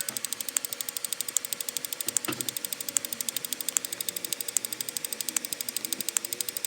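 Rapid, evenly spaced ticking sound-effect clicks, about a dozen a second, with a stronger click about every second and a dull thump about two seconds in: the per-number tick of a sped-up counting video.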